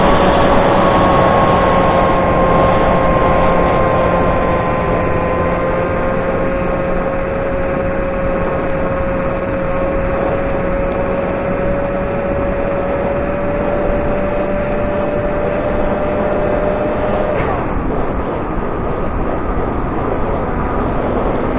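Electric motor and propeller of a Reptile S800 FPV flying wing, heard through its onboard camera: a steady whine drifting slightly in pitch over heavy wind rush. About three-quarters of the way through the motor whine drops away, leaving the rush of air as the wing glides.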